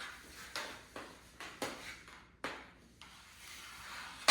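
Knee hockey play: a ball and mini hockey sticks knocking, with five or six sharp taps at irregular gaps and a louder hit at the very end.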